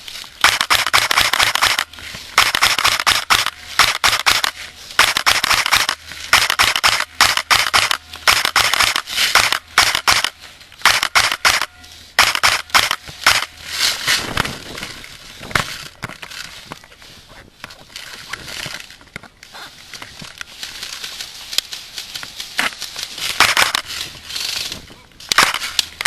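Airsoft guns firing in rapid bursts of sharp cracks, several bursts with short gaps between them, thinning out in the middle and picking up again near the end.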